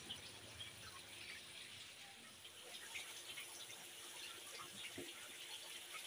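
Faint water sounds in a live shrimp holding tank: small splashes, drips and trickling as a mesh scoop net is worked through the water.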